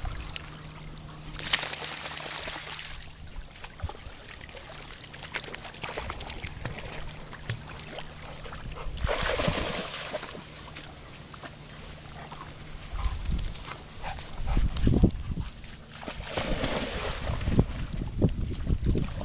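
Pond water splashing and sloshing in a few bursts as a Labrador and its puppies swim and clamber in and out at the grassy edge, with occasional puppy whimpers.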